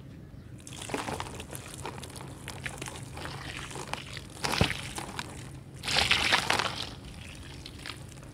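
Water poured in a stream onto dry red dirt cakes and loose soil in a tub, splashing and trickling with small crackles as the dry dirt takes it in. A short louder splash comes about four and a half seconds in and a longer, louder pour about six seconds in.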